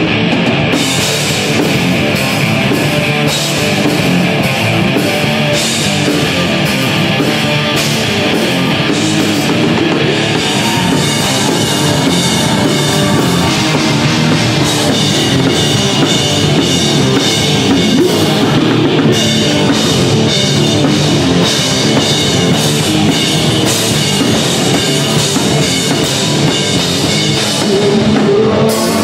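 Live alternative rock band playing loudly: distorted electric guitars over a drum kit, amplified through stage amps and PA.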